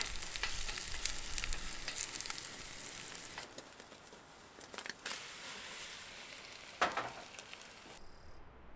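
Food frying in a pan, a steady sizzle with crackling pops that is strongest for the first three seconds or so and then dies down. A single sharp knock comes about two-thirds of the way through.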